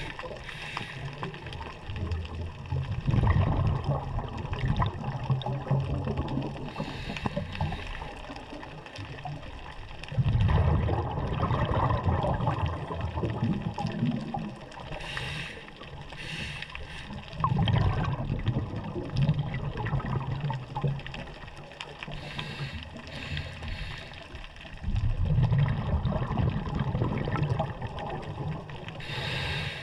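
Scuba diver breathing through a regulator underwater: a short hiss on each inhale, then a rush of exhaled bubbles lasting two to three seconds, repeating about every seven seconds.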